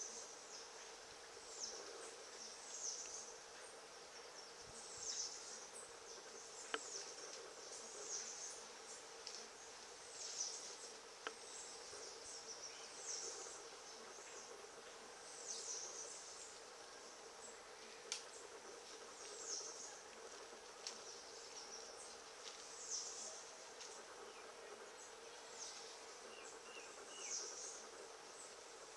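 Outdoor ambience: short high-pitched chirps repeating every one to two seconds over a faint steady hum, with a few sharp faint clicks.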